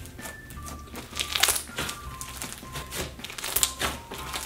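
Hands squishing and pressing a large mound of fluffy, bead-flecked slime, giving irregular crackles and squelches, with soft background music underneath.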